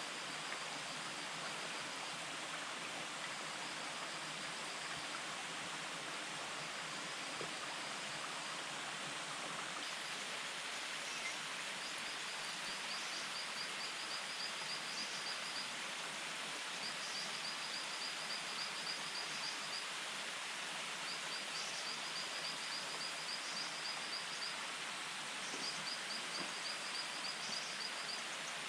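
Steady wash of running water or rain, with a high, rapid trill from a small animal repeating in short bouts every few seconds, more often in the second half.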